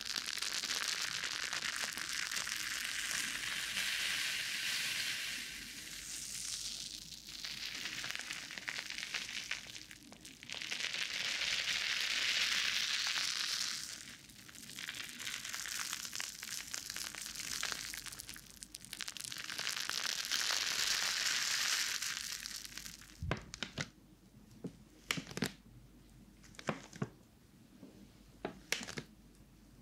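Foam-soaked sponges squeezed and rubbed against the ears of a binaural microphone, in about five long swells of soapy foam noise. About three quarters of the way in this stops, and a few sharp crinkles follow as a plastic pack of wet wipes is handled.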